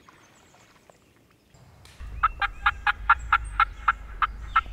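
A run of sharp, evenly spaced hen turkey yelps, about four a second, starting about two seconds in after a faint, quiet stretch.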